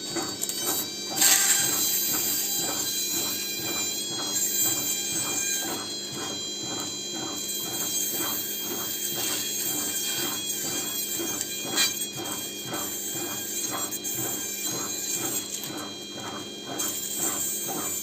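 Bosch washing-machine brushed motor running on spin, with several steady whining tones and a regular pulse about twice a second. Two brief brighter hisses, about a second in and near the twelfth second, fit the abrasive stone being pressed on the spinning commutator to even out uneven brush wear.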